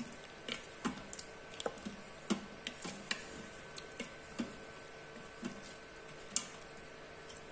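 Wooden spoon stirring chicken curry in a stainless steel Instant Pot inner pot: irregular light knocks and clicks of the spoon against the pot, roughly two a second.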